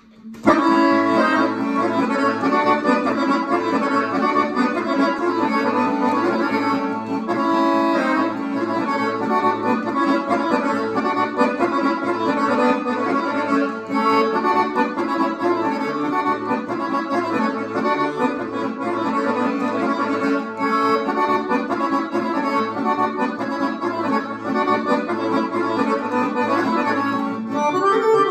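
Dallapé button accordion playing a kolo folk-dance tune. A busy melody runs over a steady beat of bass notes and chords, starting about half a second in.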